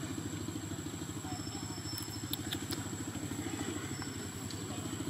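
A small engine running steadily at idle, with a fast even pulse. A thin steady high tone runs over it, and a few faint clicks come about two seconds in.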